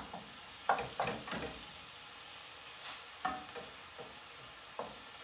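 Lamb sizzling as it fries in a skillet while a wooden spoon breaks it up and stirs it, with several short scrapes and knocks of the spoon against the pan over a steady sizzle.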